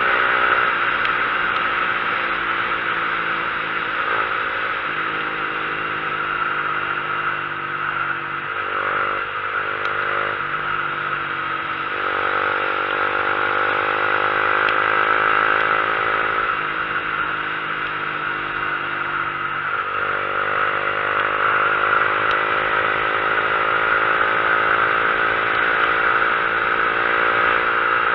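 Motorcycle engine pulling up a mountain road through the gears, its pitch climbing and then dropping at each shift, several times. Strong wind rush over the microphone throughout.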